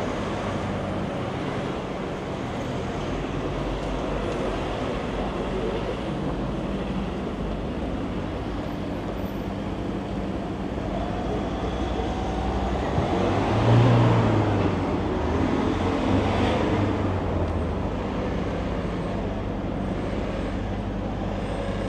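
City street traffic: cars and vans running past steadily, with one vehicle passing close a little past halfway, its engine hum swelling and fading.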